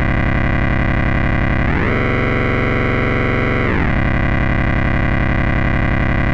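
Distorted, droning music: one sustained tone that slides up in pitch about two seconds in, holds, and slides back down about four seconds in.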